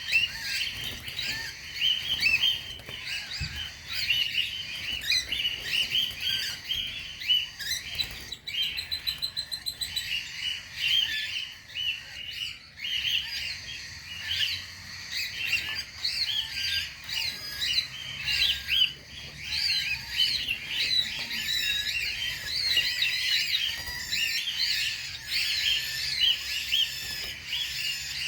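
A flock of cockatiels chirping and calling over one another, continuously. About eight seconds in there is a quick run of rapid, evenly spaced high ticks.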